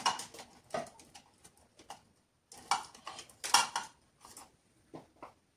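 Light clicks and clatter of paintbrushes being put down and picked up as a thinner round brush is swapped in, in a few short rattles, the loudest about three seconds in.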